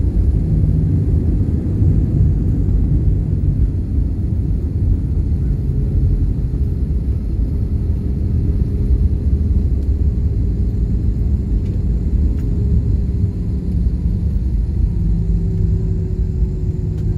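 Steady low rumble heard inside a jet airliner's cabin as it rolls along the runway after landing: engine noise and wheels on the runway, with a faint steady hum in the second half.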